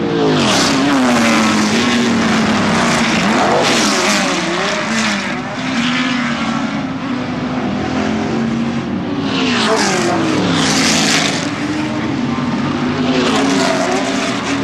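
Historic sports racing cars passing one after another under power: big Can-Am V8s mixed with smaller two-litre racing engines. Each engine note drops in pitch as its car goes by, with the loudest passes about a second in, around four seconds, around ten to eleven seconds and near the end.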